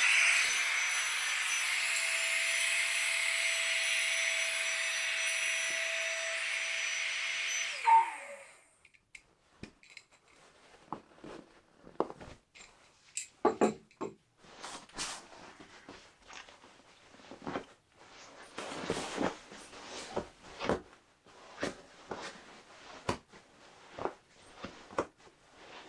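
Air hissing steadily out of the valve of a Sea to Summit Ultralight Deluxe inflatable pillow as it is squeezed to deflate it, with a faint whistle in the rush of air. It cuts off about eight seconds in with a click. After that come quieter rustles and scuffs of nylon fabric and light knocks as the pillow is handled and pushed into a bivvy bag's hood.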